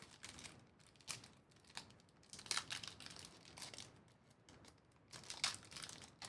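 Trading cards and their plastic or foil pack wrappers being handled: irregular crinkling and rustling in short bursts, several times over.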